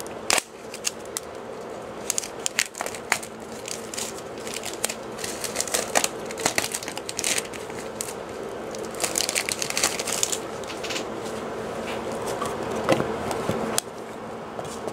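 Plastic wrapping and card packaging crinkling and crumpling as they are handled, with many small clicks and taps, busiest a little past the middle.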